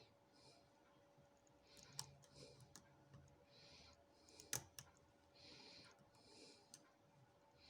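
Faint clicks and ticks of lock picks working the pins of a Union 5-pin rim cylinder during picking, with a sharper click about four and a half seconds in.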